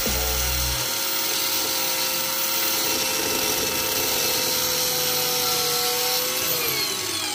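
Electric angle grinder running steadily, grinding down a metal part of a car's front suspension. Its whine drops in pitch near the end as it spins down.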